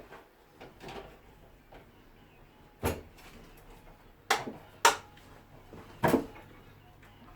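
Steel-wire-armoured cable and its cable gland being handled and worked by hand: four sharp clicks and knocks, one about three seconds in, two close together a little past four seconds, and one just past six.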